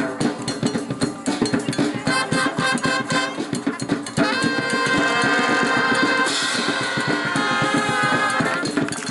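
Live percussion music: fast, steady drumming, joined about four seconds in by a held chord of several notes that lasts until shortly before the end.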